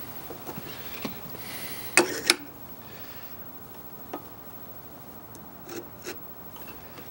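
Metal parts of a sharpening jig clicking and knocking as it is adjusted and the plane-iron holder is set onto it. The loudest are two sharp knocks in quick succession about two seconds in, with a few lighter ticks later.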